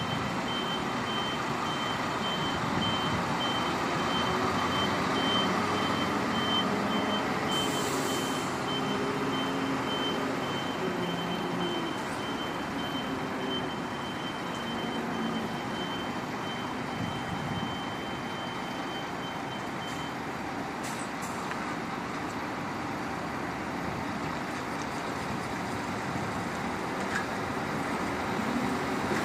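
Scania K410EB6 coach's diesel engine running at low speed as it manoeuvres, with its reversing beeper sounding in quick, even pulses until about twenty seconds in, when the beeping stops and the coach moves off forward. A short hiss comes about eight seconds in.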